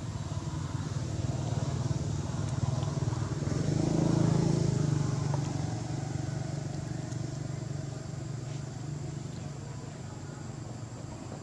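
A motor vehicle's engine running, a steady low hum that grows louder to about four seconds in and then slowly fades.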